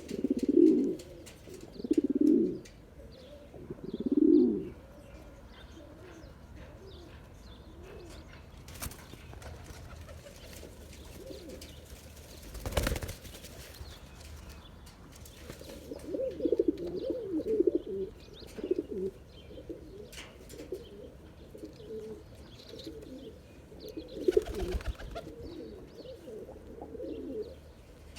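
Male Sana'ani pigeon cooing: three loud, deep coos in the first few seconds, then a longer run of softer coos in the second half. A short thump about halfway through.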